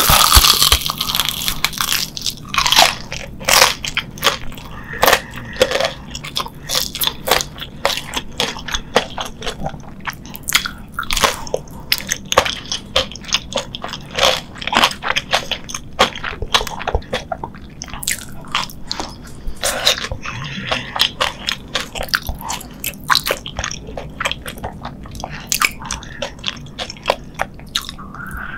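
Close-miked biting and chewing of a Korean corn dog with a crunchy fried crust. A loud crunchy bite comes right at the start, then repeated crackly crunches as she chews.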